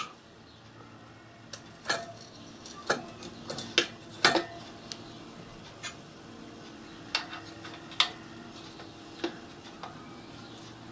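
Scattered metallic clicks and knocks, about ten in all, as a multi-tube gas burner is fitted into the firebox of a miniature steam locomotive and coupled to its fittings.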